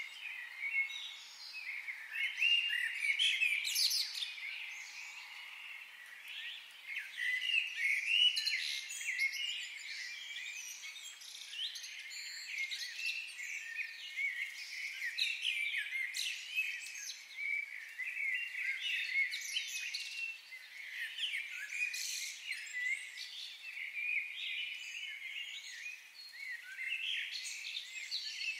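A chorus of many birds chirping and calling at once, a dense run of short, high, overlapping chirps.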